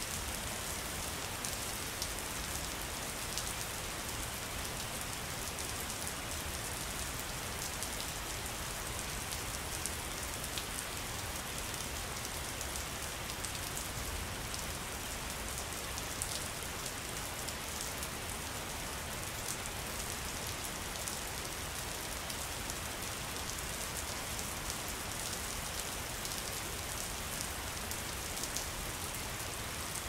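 Steady rain falling: an even hiss with fine drop ticks scattered through it.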